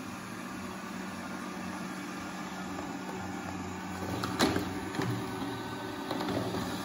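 Proscenic 820T robot vacuum running on a tile floor, a steady hum of its suction fan and brushes. A little past halfway there is a sharp knock as its bumper meets a metal table leg, with a smaller knock just after.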